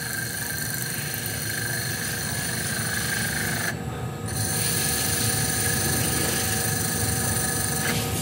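Metal lathe turning a motorcycle wheel hub while a boring tool cuts its bore: a steady machine hum with a high whine over it, dipping briefly about four seconds in.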